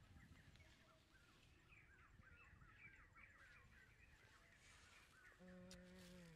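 Faint birdsong: a quick run of repeated chirps, followed near the end by a short steady low hum lasting about a second.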